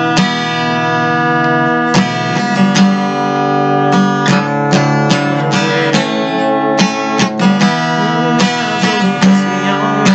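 Acoustic guitar strummed in repeated chords.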